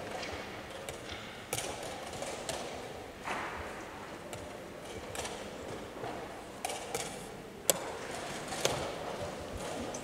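Chess pieces being set down on a wooden board and a chess clock being pressed during a blitz game: several sharp clicks and knocks spread out, the loudest about three-quarters of the way in, over a steady low hall background.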